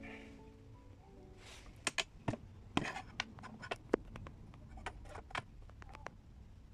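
Irregular light clicks, taps and short scrapes of hard plastic and metal parts being handled in a PC case, a dozen or so, after a few notes of background music fade out.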